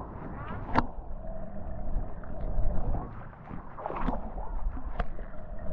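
Underwater sound picked up by a camera in a waterproof housing: a constant low rumble of moving water with gurgling bubbles, a faint steady hum, and a few sharp clicks about a second, four seconds and five seconds in.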